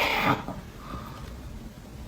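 A man snoring: one loud, rasping snore ends about a third of a second in, followed by a quieter stretch between snores.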